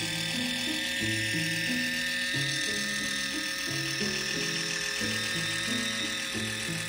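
Background music with a stepping melody, over the steady high whine of a Kitchen Mama electric can opener's small motor running as it cuts around a can lid.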